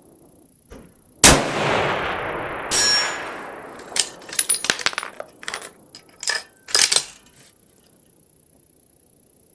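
A single shot from a scoped bolt-action precision rifle about a second in, its report rolling away down the range for about two seconds. This is followed by the bolt being worked: a run of sharp metallic clicks and clacks over the next few seconds.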